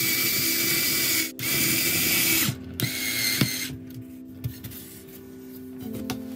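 Small cordless screwdriver driving a screw through a metal angle joiner into the wooden frame, running in three spurts: two of about a second each with a brief stop between, then a shorter one about three seconds in.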